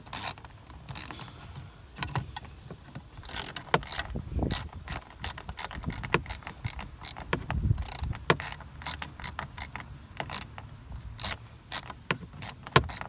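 Irregular sharp plastic clicks and small knocks as a folding cup holder is handled and fitted, with a few duller thuds partway through.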